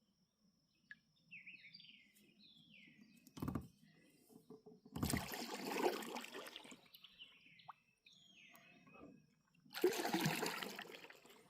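Kayak paddle strokes: two swishing, splashing passes of the blade through the water, each lasting about two seconds, with a single knock a few seconds in. Between the strokes a bird sings short down-slurred phrases over a thin, steady high-pitched hum.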